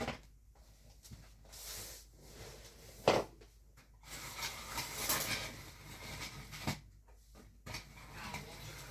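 Scattered knocks and light clatter of small objects being handled, with one sharp knock about three seconds in and a stretch of rustling in the middle.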